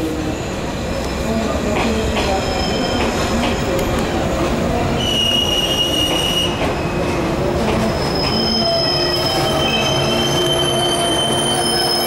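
485-series electric train rolling slowly into a station platform as it arrives, with a steady rumble from the passing cars. High-pitched metallic squeals come in about halfway through and again over the last few seconds.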